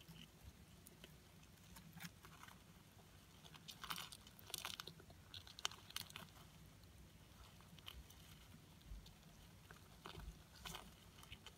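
Faint, irregular clicks and crackles of Dubia cockroaches feeding on an orange, bunching up about four to five seconds in and again near the end, over a low steady hum.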